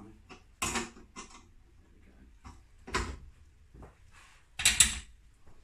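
A few separate clicks and clunks from a 10 mm ratchet spanner nipping up a nylon nut, with a louder clatter near the end as the tool is handled.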